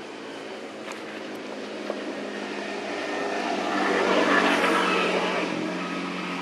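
An engine passing by: a steady hum that grows louder to a peak about four seconds in, then fades.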